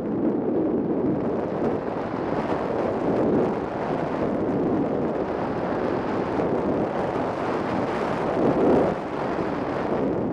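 Wind rushing over the onboard camera's microphone on a 3-metre Ka8b model glider in flight, a steady noisy rush that swells briefly near the end.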